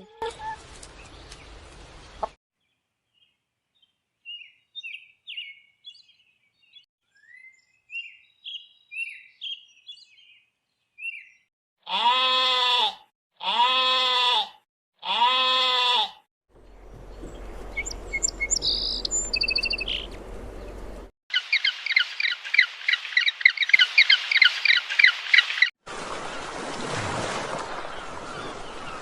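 A run of different animal calls, one after another: scattered short bird chirps, then three loud drawn-out calls about a second apart, then a fast, even, high-pitched trill.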